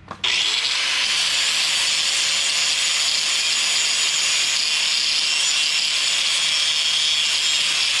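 Handheld angle grinder winding up and then grinding steadily on a steel rotary cutter blade, sharpening the edge and grinding out nicks.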